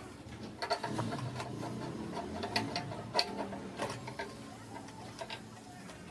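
Screws being driven in to fix a new spider to a front-load washing machine drum: a stretch of mechanical clicking with a steady whir, starting about half a second in and fading near the end.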